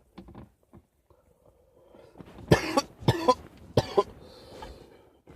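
A man coughing hard three times in quick succession, starting about two and a half seconds in.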